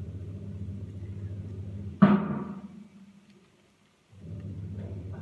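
A steady low hum, broken about two seconds in by one loud thump that rings out and fades. The hum drops away for a moment after it, then comes back.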